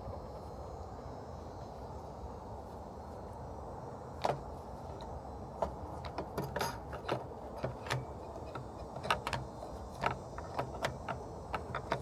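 Light, irregular clicks and rattles of car headlight assembly parts being handled, starting about four seconds in and coming more often toward the end, over a steady low hum.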